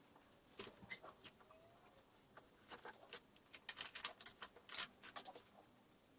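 Faint, irregular clicks and taps of small plastic parts being handled: the electric window switch and its holder being worked back into place. The clicks come thickest about three to five seconds in.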